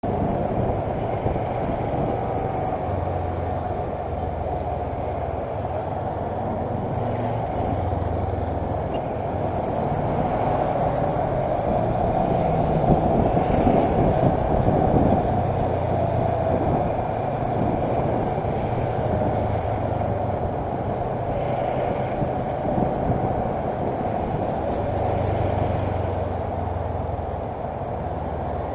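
Kawasaki Versys motorcycle riding slowly through heavy traffic, its engine running under a steady rush of road noise, heard from a mic on the bike. It gets a little louder about halfway through.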